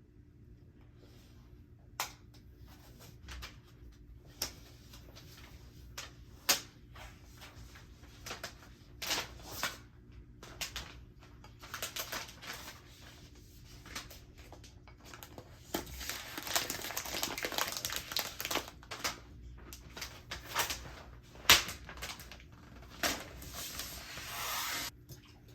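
Scattered clicks, knocks and rustling from things being handled on a desk, such as packaging and objects being moved. A longer stretch of rustling comes about two-thirds of the way through and again just before the end.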